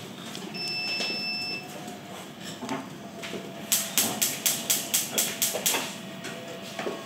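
A steady electronic beep lasting about a second, then a quick run of about ten sharp clicks, some five a second, over a faint steady hum.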